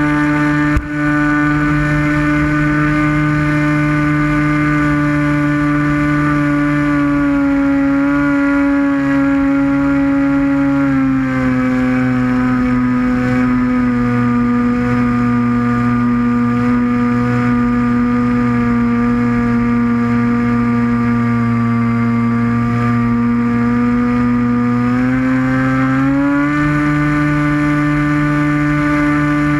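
Electric motor and propeller of an RC Icon A5 model seaplane running steadily with a pitched whine, heard close up from on board. A brief knock comes about a second in. The pitch drops about eleven seconds in and rises again a few seconds before the end.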